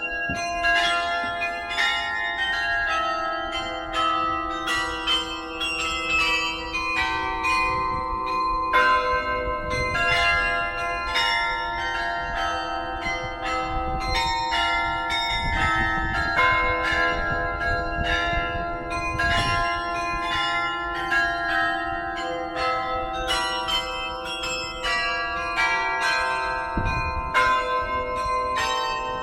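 Carillon playing a melody: many tuned bells struck in quick succession, several notes a second, each ringing on under the next.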